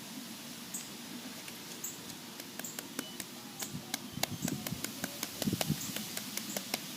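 Quick, irregular light clicks and taps of small ball bearings being handled and knocked together as they are taken out of a bowl of rubbing alcohol, with soft handling rustle. The clicks start a few seconds in and come thickest in the middle.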